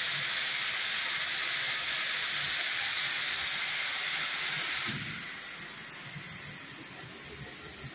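Steam hissing steadily from a steam press, dropping suddenly to a weaker hiss about five seconds in.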